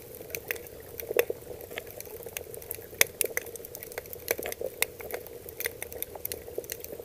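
Underwater recording of toadfish calling: a steady drone at one pitch over irregular sharp clicks and crackle. The toadfish are calling at a lowered pitch, less often, in response to the hurricane that had just passed.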